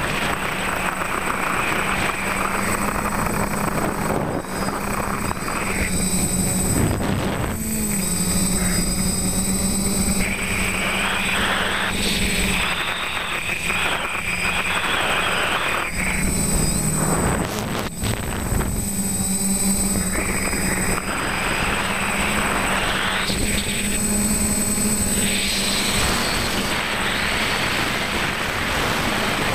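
Electric motors and propellers of a TBS Discovery quadcopter, heard through its onboard camera: a steady buzzing hum whose pitch shifts up and down a few times with the throttle, under a rushing air noise that swells and fades several times.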